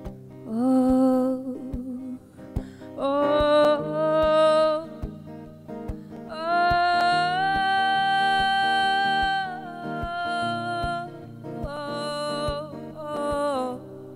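A woman singing a slow melody of long, drawn-out notes over picked acoustic guitar, live. One note is held for about three seconds from about six seconds in.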